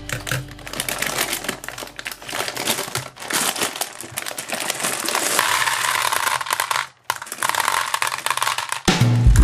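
Plastic bag crinkling as it is handled, then hard gumballs pouring out and rattling into a plastic toy bathtub in a dense clatter. Music comes in near the end.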